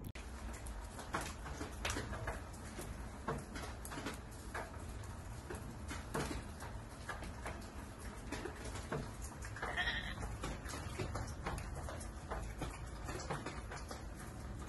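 Scattered clicks and taps, with one short, high animal call about ten seconds in.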